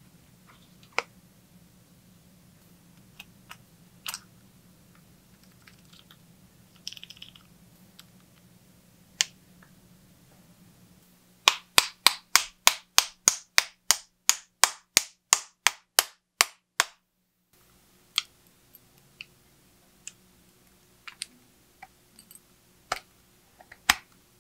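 Small sharp clicks and taps of hand-tool work on a bicycle. In the middle comes a run of about twenty evenly spaced clicks, about four a second, lasting around five seconds.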